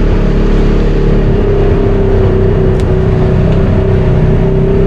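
Off-road vehicle engine running steadily at an even pitch, loud from on board the machine.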